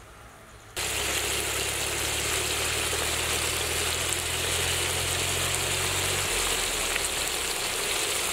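Dried sea fish with onion, tomato and green chilli frying in a large pan of oil: a steady, dense sizzle that starts suddenly under a second in. A low steady hum runs underneath and stops about six seconds in.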